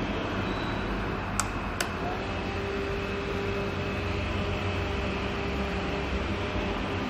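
Small battery/mains desk fan running with a steady whirring drone. Two sharp clicks about a second and a half in, then a steady hum holds.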